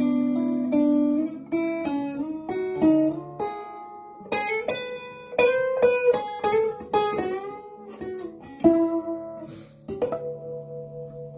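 1960s Musima parlor acoustic guitar played with plucked notes and strummed chords, ending with a final chord struck about ten seconds in that rings out.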